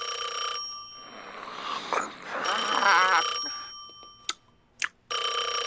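Telephone ringing: a bright bell ring about a second long, heard at the start and again near the end. Between the rings come a rustling swell with a short voice sound and a further ring, then two sharp clicks.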